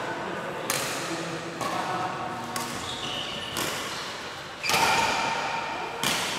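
Badminton rackets striking a shuttlecock in a rally, about one sharp hit a second, six in all, each ringing on briefly in the echo of a large sports hall; the loudest hit comes just under five seconds in.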